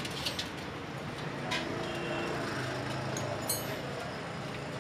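Steady background street noise with a few light metallic clinks of small metal parts handled in a metal bowl of oily liquid, and a faint low hum in the second half.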